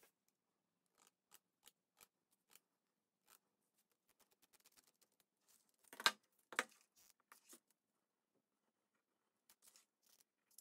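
Scissors cutting rhinestone mesh ribbon: scattered light snips and rustles, with two louder clicks about six seconds in.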